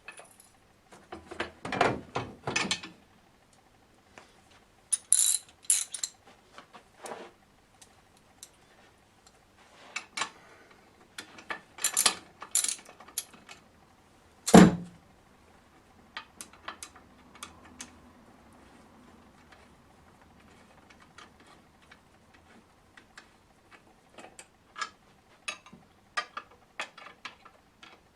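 Hand tools bolting a metal luggage-rack arm onto a motorcycle: clinks and rattles of metal parts and bolts, one sharp knock about halfway, then a socket ratchet clicking in short quick runs.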